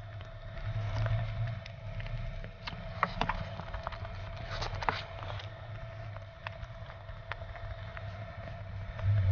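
Close-miked eating sounds of someone chewing soft cream cake and cubed fruit: scattered mouth clicks and smacks, a few sharper ones about three and five seconds in, over a steady faint hum.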